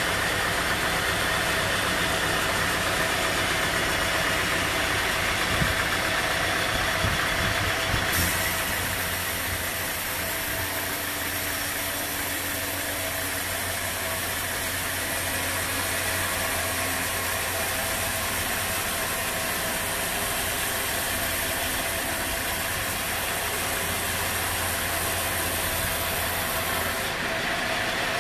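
Band sawmill running, its blade sawing lengthwise through a squared teak log: a steady machine drone. The sound changes abruptly about eight seconds in, when a steady low hum comes in, and again near the end, when that hum drops out.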